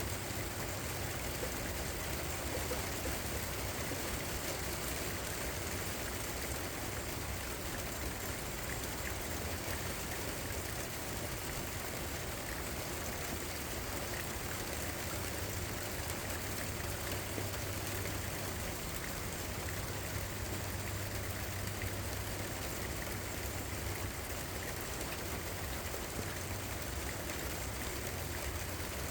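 Steady rain falling, an even hiss of water with a low, steady hum beneath it.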